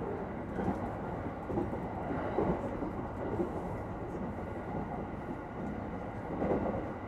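Inside a commuter electric train running between stations: a steady rumble of wheels on the rails and of the carriage, with a couple of brief louder swells.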